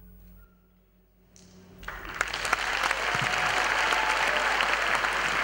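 The band's last note dies away, a brief hush follows, then audience applause breaks out about two seconds in and quickly builds to steady, loud clapping.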